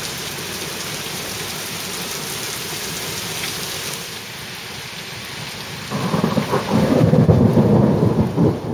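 Heavy rain falling with a steady hiss, then a loud low rumble of thunder rolling in about six seconds in and becoming the loudest sound.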